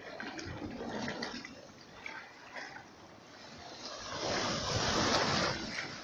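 Sea waves washing against shoreline rocks, with one larger surge building about four seconds in and fading away.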